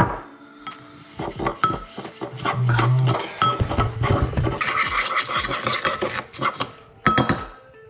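Kitchen utensils and dishes clinking, tapping and scraping while a spiced vinegar marinade is mixed, with a busier stretch of scraping and rubbing about four to six seconds in.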